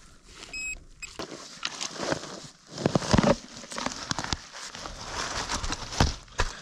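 Digging by hand in loose soil and dry leaf litter: irregular crunching, scraping and crumbling of earth, with a brief high beep near the start.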